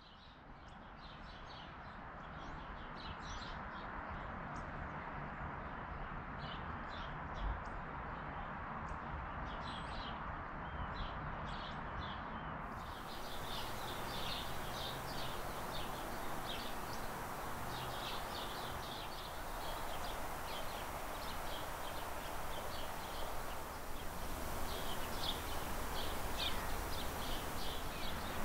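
Outdoor ambience of small birds chirping over and over above a steady background rush, fading in at the start. A single low thump comes about a quarter of the way in, and the sound turns brighter about halfway through.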